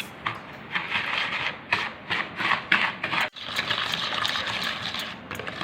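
Butter and sugar being creamed by hand in a bowl: a mixing utensil scraping and beating against the bowl in quick repeated strokes, broken off suddenly a little past halfway and then continuing as steadier scraping.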